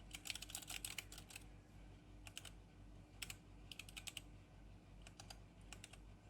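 Keys of a Geek GK64 mechanical keyboard with brown tactile switches being typed in short, irregular bursts of clicks, a fast run at the start and then smaller groups.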